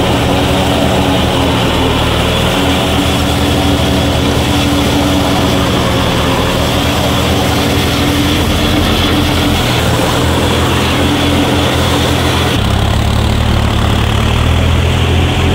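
John Deere tractor's diesel engine running steadily under load as it drives a rotavator through a flooded paddy field. The sound shifts abruptly in tone about two-thirds of the way through.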